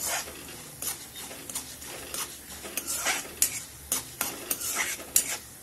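Metal spoon stirring and scraping lentils and mustard and cumin seeds around a steel kadhai, with irregular clinks and scrapes over the sizzle of hot oil, as the dal fries until lightly browned.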